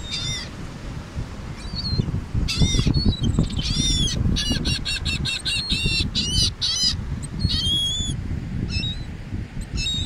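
Gulls calling: a few longer calls, then a fast run of short calls, about four a second, through the middle, and a few more calls near the end. Wind rumbles on the microphone throughout.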